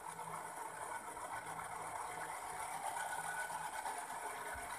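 Small electric motor of an RC Chinook model helicopter running and spinning its upper rotor, a steady whirring buzz.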